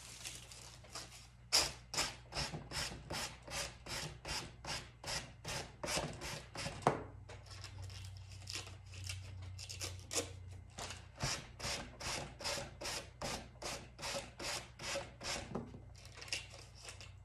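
Quick, even rubbing strokes along the edge of a wooden board, about three a second, wearing away the excess decoupage paper overhanging the edge. The strokes break off briefly about seven seconds in, then carry on.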